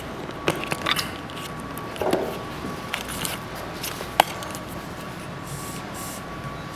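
Handling noise at a desk: a few small clicks, a soft scuff about two seconds in and a sharp tap a little after four seconds, as a wooden picture frame and a paper note are shifted and the camera is moved.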